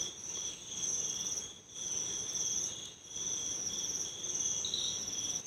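Crickets trilling in a steady chorus of two high-pitched bands that swell and fade in waves about every second and a half.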